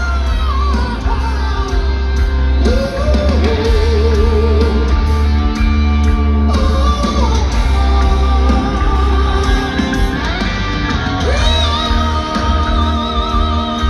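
A heavy metal band playing live, with distorted electric guitars, a pounding low bass and drum end, and a singer's voice over it. Held notes waver in pitch throughout.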